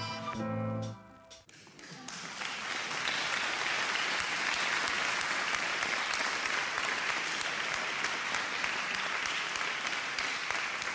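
A short musical jingle ends about a second in, then an audience applauds steadily, easing off right at the end.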